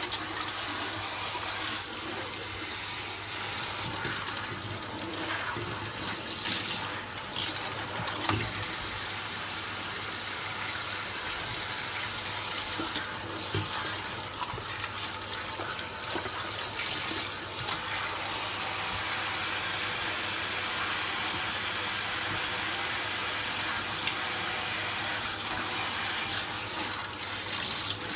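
Kitchen mixer tap running steadily into a stainless steel sink, the water splashing over hands, a cloth and brush heads rinsed under it.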